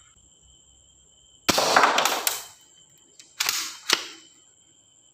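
Toy gun shooting sounds: a short rattling burst about a second long, then two sharp single shots about half a second apart.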